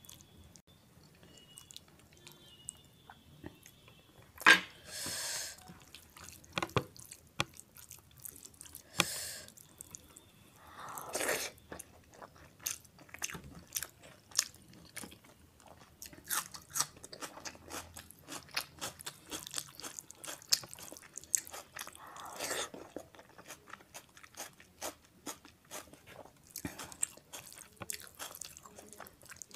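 Close-miked chewing of rice and mutton keema eaten by hand: a string of soft wet mouth clicks, with a few louder, noisier bursts spread through.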